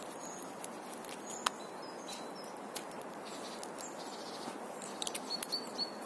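Small clicks and rustling from a small metal capsule lighter being handled and slipped into a fabric side pouch of a belt sheath: one sharp click about a second and a half in, and a run of small clicks near the end. Steady outdoor background noise runs underneath, with a few faint bird chirps.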